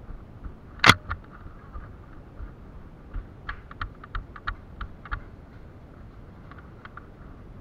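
Light clicks and taps of footsteps and gear from a person moving through a building and up stairs, about three a second for a couple of seconds, with a few more near the end. About a second in there is one single sharp, loud click.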